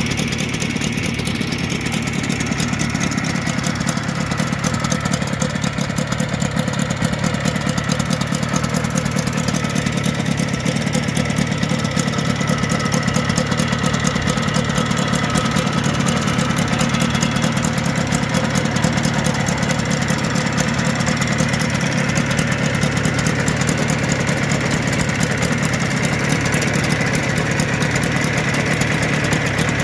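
Air-cooled two-stroke motorcycle engine idling steadily.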